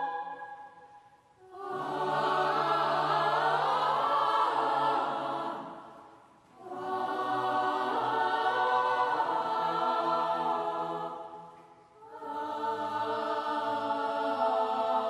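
Boys' choir singing in long held phrases. The sound fades to a brief breath-pause three times: about a second and a half in, around six seconds, and near twelve seconds.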